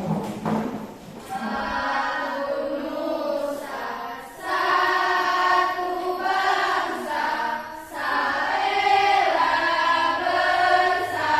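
A group of voices singing together in long held phrases, with brief breaks about four and eight seconds in.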